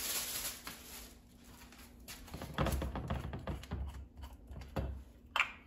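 Irregular light clicks and rustles of hands at work, starting about two and a half seconds in: a thin plastic prep glove being handled and a glass olive oil bottle picked up by its cap, with a few soft thuds and one sharper click near the end.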